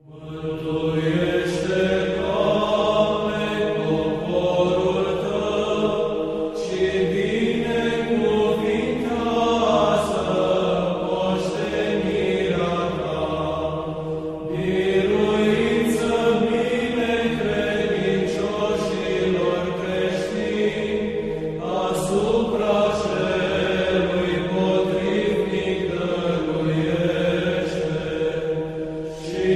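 Orthodox church chant: voices singing slow melodic phrases over a steady held drone, in long phrases with brief pauses between them.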